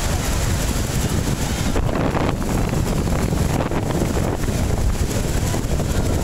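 Loud, steady rush of the American Falls at Niagara close up, mixed with wind buffeting the microphone.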